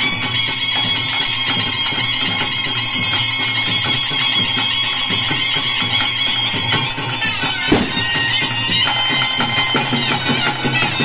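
Bhuta kola ritual music: steady drumming and jingling metal under a high, held melody line that bends a little in pitch. A single loud thump stands out nearly eight seconds in.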